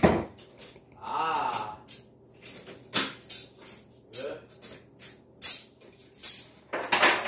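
Irregular sharp clicks and light clinks, several a second and uneven, with a brief wavering voice about a second in and again past the four-second mark.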